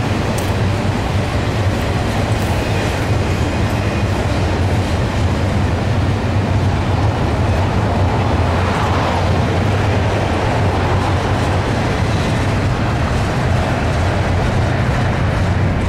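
Double-stack intermodal container well cars rolling past at close range: a steady rumble of steel wheels on rail.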